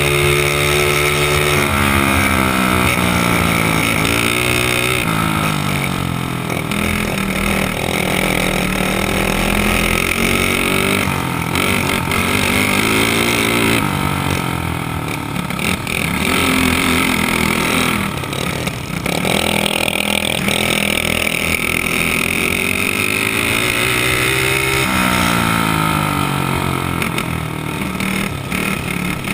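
Dirt kart engine heard from on board, revving hard and then dropping off and picking up again several times as the kart laps the dirt track.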